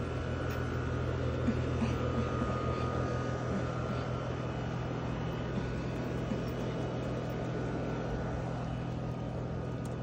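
Steady low hum of outdoor electric machinery, an unchanging drone with no rise or fall.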